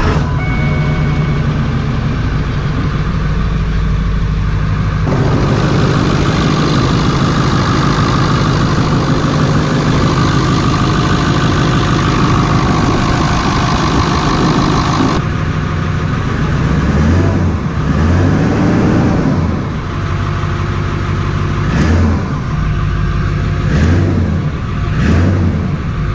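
Ford 7.3L Power Stroke turbo-diesel V8, freshly started, idling steadily. Then, at the open engine bay with the new aFe open-element intake, the intake and turbo sound comes through brighter for about ten seconds. Near the end it is revved: one longer rise and fall, then several quick blips.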